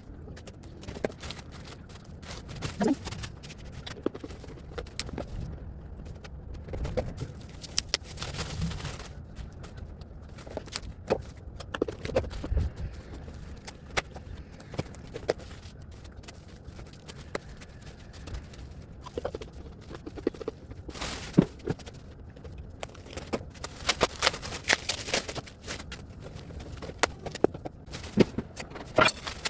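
Irregular clatter of kitchen handling: scattered knocks and clicks with a few bursts of rustling, as food packs and containers are moved about.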